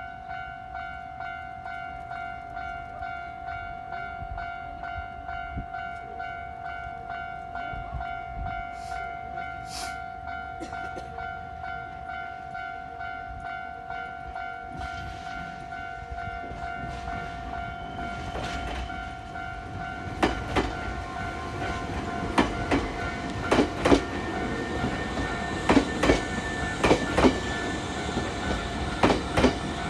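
Japanese level-crossing warning bell ringing in a steady, rapidly repeating pattern. A Nankai train approaches under it, growing louder, and from about 20 seconds in its wheels clack loudly and repeatedly over the rail joints as it passes through the crossing.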